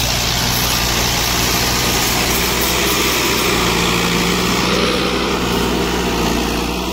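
Farm tractor's diesel engine running steadily under load, pulling a spring-tine cultivator through ploughed soil.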